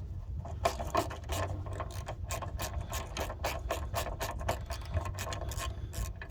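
Ratchet spanner clicking rapidly and evenly, about five clicks a second, as a 10mm bolt holding a VW T25's windscreen washer reservoir is wound out.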